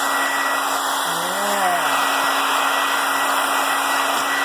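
Handheld blow dryer running steadily: an even rush of air with a constant hum.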